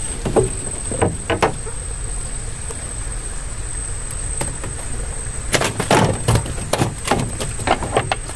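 Knocks and clatter on a wooden boat as fishing gear is handled on deck, in two bursts: a few knocks around the first second, then a busier run of knocks from about five and a half seconds in. A steady high-pitched tone runs underneath.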